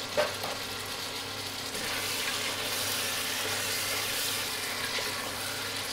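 Beef sizzling in oil in a pot as it is sautéed with ginger and garlic paste: a steady frying hiss that grows a little louder about two seconds in. There is one light knock near the start.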